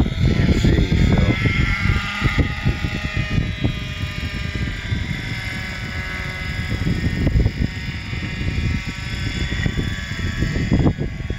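JR Ergo .60 radio-controlled helicopter's two-stroke glow engine and rotor running at flight power. The engine note rises over the first couple of seconds as the helicopter lifts off the grass, then eases down and settles as it flies.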